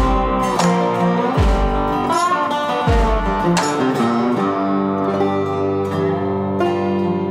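Background music led by guitar, with a heavy low beat about every one and a half seconds that drops out about three seconds in.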